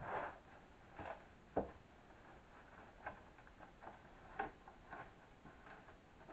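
Faint, scattered knocks and scuffs of a tongue-and-groove OSB floor panel being handled and nudged into place on a concrete floor, with one sharper knock about a second and a half in.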